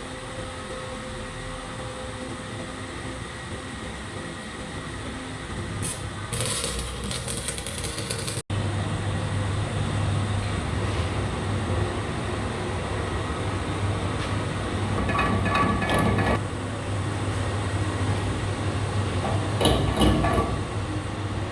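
Lathe machine running, a steady low motor hum with short bursts of higher-pitched scraping noise. The hum drops out for an instant about eight seconds in and comes back stronger.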